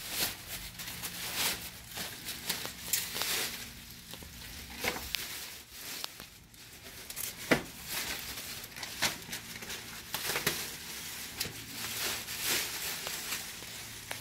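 Clear plastic packaging film crinkling and rustling as it is pulled off a screen door frame and bunched up by hand, in irregular bursts. A few sharp clicks come through, the loudest about seven and a half seconds in.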